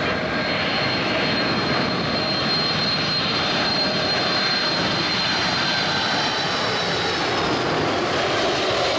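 Boeing 747 jet engines on landing approach: a loud, steady jet noise with a high whine that slowly falls in pitch.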